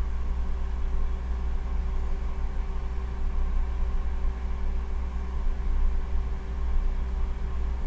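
Steady low hum and rumble of a running motor, with a few faint steady tones over it.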